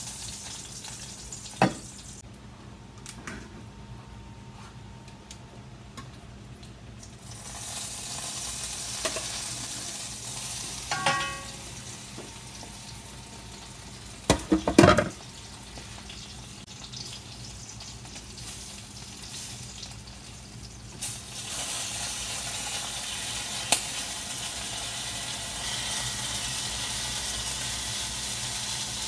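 Chicken leg quarters sizzling in hot oil in a skillet as they sear. The sizzle drops low for a few seconds early on and swells again later. A few sharp knocks and clinks of tongs and utensils against the pan are heard, the loudest cluster about halfway through.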